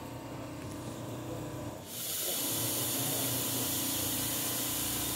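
Steady machine hum with a low tone. About two seconds in it switches suddenly to a louder, even hiss, with the hum still faint beneath.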